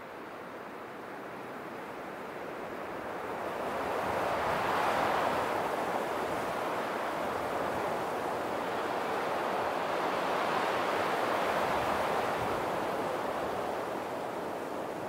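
A steady rushing noise, like surf or wind, that swells over the first few seconds and then holds, with no tone or rhythm in it.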